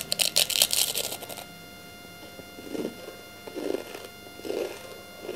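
Crunching bite into a crispy, paper-thin-layered Tibetan sanga bhaley cookie: a quick run of sharp crackles in the first second and a half, then softer closed-mouth chewing about once a second.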